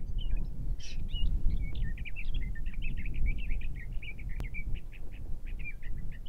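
Many small birds chirping continuously in a dense chorus of short, quick notes, over a low, uneven rumble. A single sharp click comes about four seconds in.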